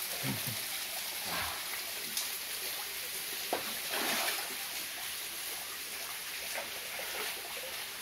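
Small waterfall: a steady rush of water running and trickling over rock.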